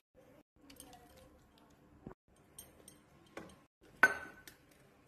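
Utensils knocking on cookware as paneer masala is spooned onto rice in a nonstick pan: a few light taps, then a sharp metallic clank with a short ring about four seconds in.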